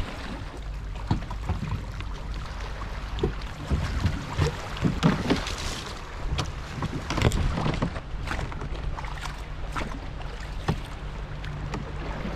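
Scattered knocks and clunks of a person climbing into a plastic sit-on-top fishing kayak and shoving off from a rocky shore, then starting to paddle, with wind on the microphone.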